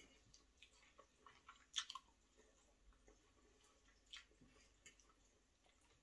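Faint eating sounds: a man chewing buckwheat and meatball, with a few soft clicks of a fork on the plate, the sharpest about two seconds in.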